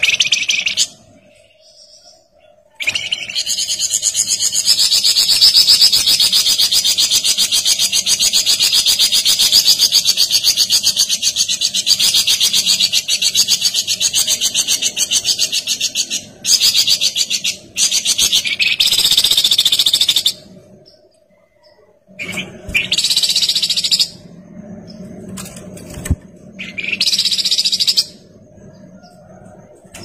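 Olive-winged bulbul (kapas tembak) singing. A short high call at the start is followed by one long, rapid, unbroken trill lasting about thirteen seconds, then four shorter trilled phrases of one to two seconds each.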